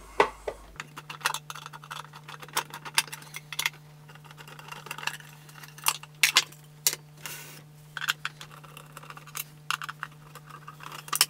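Irregular metallic clicks and clinks of a screwdriver and small screws as the screws holding the wooden top cover of a vintage receiver are taken out, with knocks as the wooden cabinet is handled.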